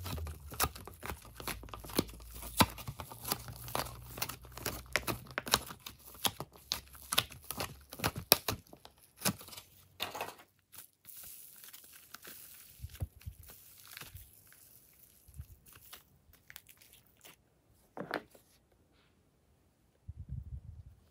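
Hands squeezing and tearing soft clay, making dense, rapid crackling and tearing sounds that thin out to sparser crackles in the second half, with a short pause near the end.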